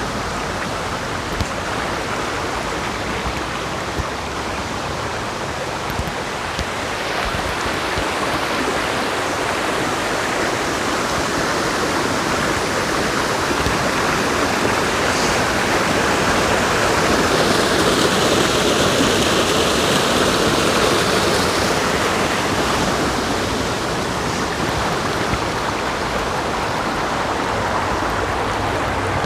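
Water rushing steadily over a waterfall, a continuous even roar that grows a little louder about halfway through before easing back.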